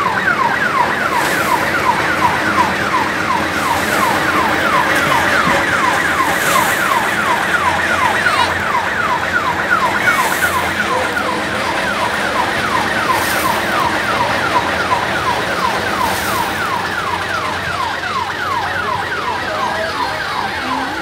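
Electronic vehicle siren sounding over and over in quick falling sweeps, about three a second, slowly growing a little fainter toward the end.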